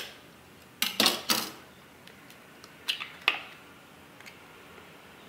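An egg being cracked with a kitchen knife over a plastic bowl: a sharp tap, a quick run of three cracks about a second in, then two more clicks around three seconds in as the shell is broken open.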